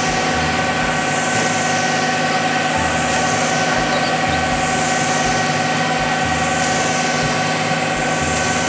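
Concrete mixer truck's engine running steadily with a constant whine while the truck discharges concrete down its chute.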